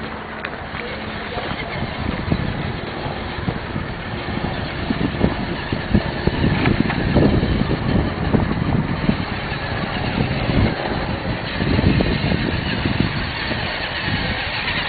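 Radio-controlled scale trucks driving through shallow water toward the camera, their motors running and the water sloshing around their wheels, louder as they come close.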